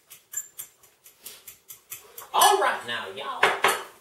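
A fork clicking and scraping against a bowl in a quick, even rhythm of about five strokes a second as a salsa is stirred. About two seconds in, a loud voice breaks in over it.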